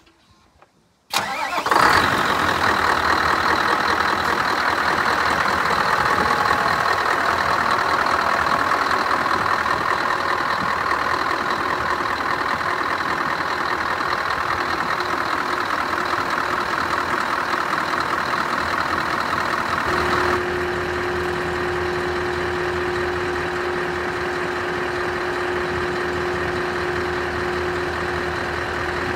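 Scania R560 truck's V8 diesel engine starting about a second in, then idling steadily. About twenty seconds in the sound drops a little and a steady hum joins it.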